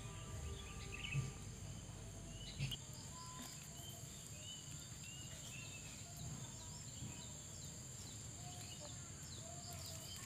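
Rural outdoor ambience: a steady high-pitched insect drone with short bird chirps scattered throughout. Two soft low thumps come in the first three seconds.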